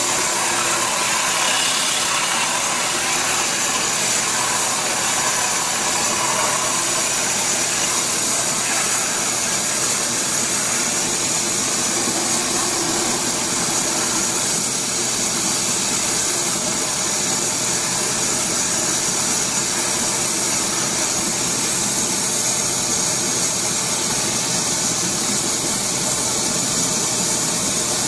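Well-drilling rig's engine running steadily under load while the drill rod turns down into the ground, with a constant hiss over a low hum.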